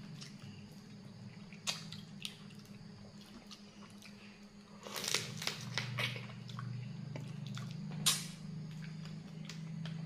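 Mouth sounds of eating blue swimming crab: wet sucking and chewing on the crab shell to draw out the meat and fat, growing busier about halfway through, with a few sharp clicks. A steady low hum runs underneath.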